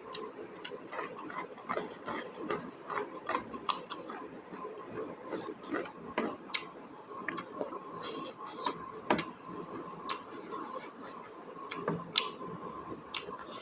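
Close-miked eating sounds: a person chewing buffalo innards curry, with irregular wet clicks and mouth smacks several times a second.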